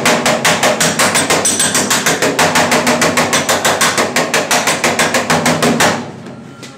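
Pneumatic air hammer driving a slapping spoon against the steel rear quarter panel of a 1968 Mustang fastback, a fast even train of light blows, about seven a second, to smooth out a low spot. The air is turned down to about 40 psi for light taps. The hammering stops about six seconds in.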